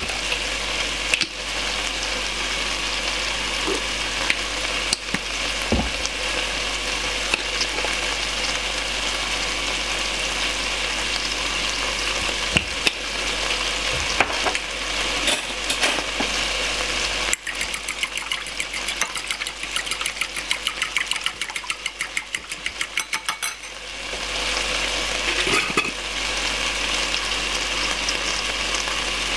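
A metal spoon stirring soy sauce mixture in a small glass bowl, a quick regular run of scraping clinks for several seconds past the middle, over a steady hiss with a few scattered clicks.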